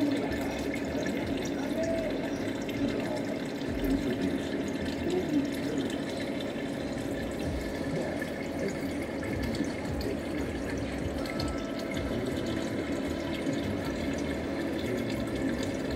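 Water circulating in a reef aquarium: a steady trickling, gurgling wash of moving water.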